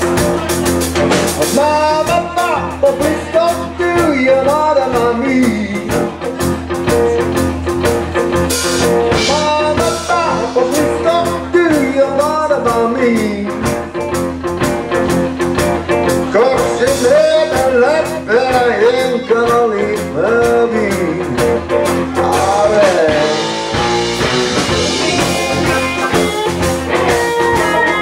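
Blues-rock band playing live: electric guitars over bass and drums, with the lead line bending and sliding between notes.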